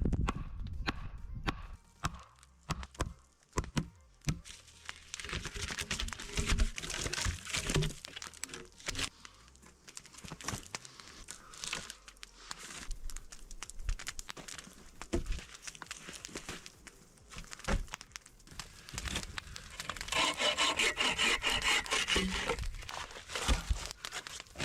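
Wooden limbs and logs being handled and set in place: scattered knocks and clacks of wood on wood, with bursts of rustling and scraping, the longest near the end.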